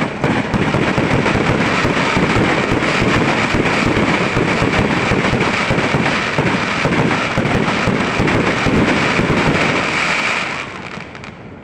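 A dense barrage of fireworks going off, rapid overlapping bangs and crackles that keep on for about ten seconds and then die away near the end.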